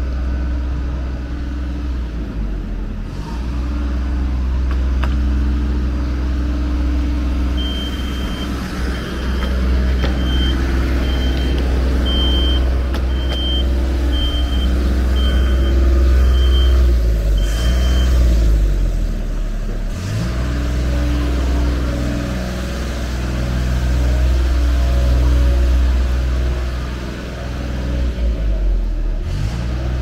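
Road traffic close by: vehicle engines running with a steady low drone, the engine note falling and rising again about two-thirds of the way through. A high electronic beep repeats about once a second for around ten seconds in the middle.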